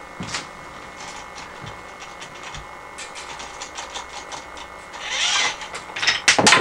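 Small toy car's mechanism clicking as it is wound up, a brief whir as it runs, then a loud clatter of wooden blocks about six seconds in as it crashes into the base of a block tower, knocking only a few blocks loose.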